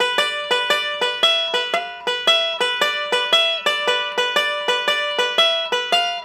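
Five-string resonator banjo played fingerstyle: a bluegrass backup lick over a G bar chord, picked in an even pattern of about four notes a second, the low notes stepping between a few pitches.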